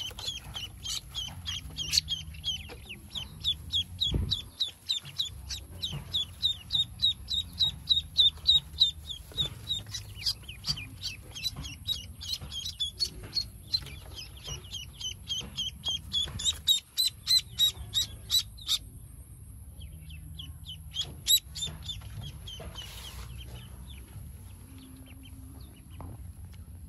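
Newly hatched Pekin ducklings peeping: short high peeps in a quick run of about three a second, thinning to scattered peeps after about nineteen seconds.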